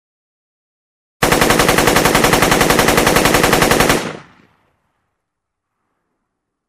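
Machine-gun sound effect: a burst of automatic fire at about ten rounds a second, lasting nearly three seconds, then cutting off with a short fading echo.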